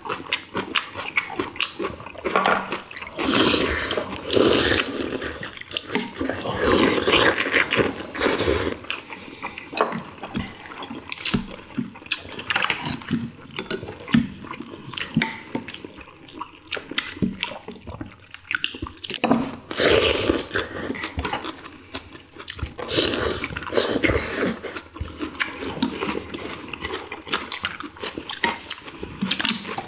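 Several people eating chicken soup close to the microphones: wet slurping of broth and chewing, in irregular bursts.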